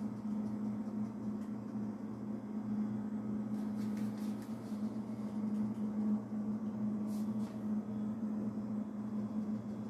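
A steady low machine hum, with a few faint brief rustles about four seconds and seven seconds in.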